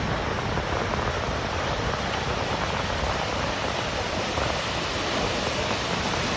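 Heavy ocean surf: a steady roar of large breaking waves.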